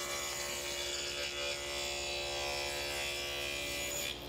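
Table saw with a dado blade running with a steady whine while a dado is cut in a plywood panel. It cuts off abruptly near the end.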